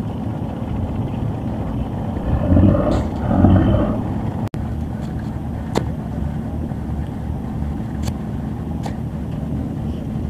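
Fishing boat engine running steadily as the boat gets under way. It gets louder for about a second and a half around three seconds in, and a few sharp knocks come later.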